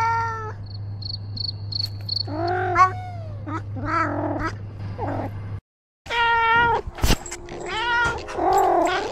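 Domestic cat meowing over and over, about eight drawn-out calls that bend up and then down in pitch. A run of five short high beeps comes about a second in, the sound drops out briefly a little past halfway, and a single sharp click comes near the end.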